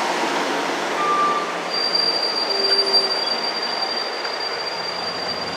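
NJ Transit passenger train rolling past along the platform, a steady rush of wheel and car noise. A thin, high, steady squeal joins about two seconds in and holds.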